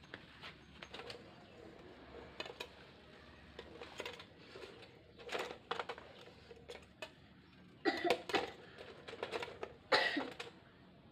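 Scattered metallic clinks and clatters of steel parts and hand tools being handled, the loudest knocks about eight and ten seconds in.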